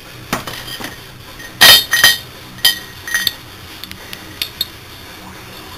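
Metal parts of a dismantled compressor knocking and clinking together as they are handled: several sharp knocks, some with a short ringing, the loudest a little under two seconds in.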